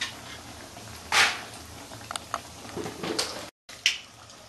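Metal spatula scraping and clinking against a kadai as an onion pakora deep-fries in hot oil, over the steady sizzle of the oil. The loudest scrape comes about a second in, with lighter clinks after.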